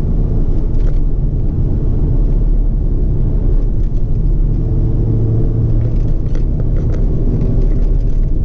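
Steady low rumble of a moving vehicle, picked up by a GoPro Hero5 Black's built-in microphone with its side door off.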